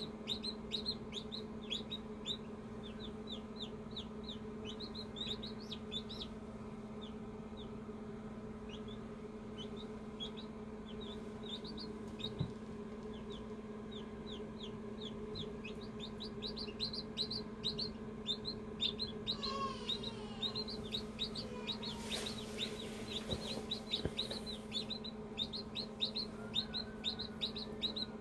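Chicken chicks peeping in runs of quick, high, falling peeps, over the steady hum of the incubator's fan. A brief rustling disturbance about three quarters of the way through.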